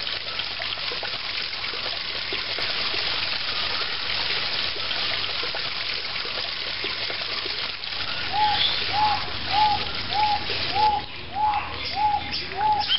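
Water trickling and splashing in a steady hiss. From about eight seconds in, a bird calls a run of evenly spaced, single hooting notes, a little under two a second.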